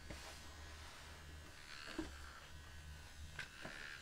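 Scruff-a-Luvs Cutie Cuts toy clippers buzzing faintly as they shave a plush pup's fur, in short uneven stretches, with a couple of light clicks.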